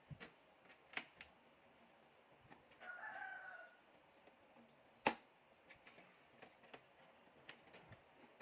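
A rooster crowing once, briefly, about three seconds in, over a quiet background with a few sharp clicks from handling computer parts; the loudest click comes about five seconds in.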